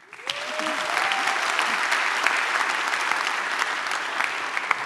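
Audience applauding, building up quickly and then holding steady. Near the start a single rising "woo" cheer rises above the clapping.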